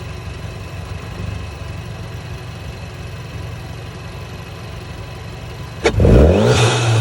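Volkswagen Jetta GLI's turbocharged four-cylinder engine idling steadily, then a sharp click near the end and the revs climb quickly and hold high, as when launch control is engaged.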